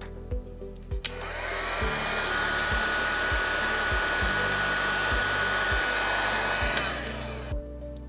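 Hot air gun blowing on heat shrink tubing: switched on about a second in, its fan whine rising and settling into one steady pitch over a steady rush of air, then switched off near the end.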